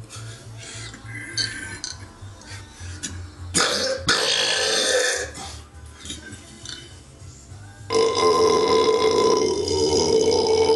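Loud belching: one belch about three and a half seconds in, then a long, drawn-out belch starting near the end, over background music with a steady low beat.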